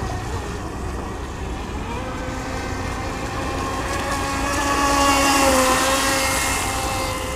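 Water-cooled brushless outrunner motor of an X-Blaze RC speedboat whining at speed while the fibreglass hull skims the water, with hissing spray. Around five seconds in it grows louder and the spray hiss swells.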